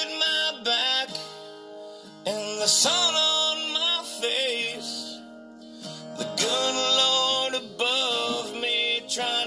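Solo acoustic guitar strummed while a man sings a slow country song over it, in several phrases with long held notes that waver in vibrato.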